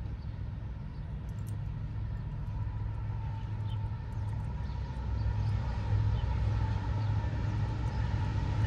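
Diesel freight locomotive approaching, its engine a steady low rumble that grows gradually louder.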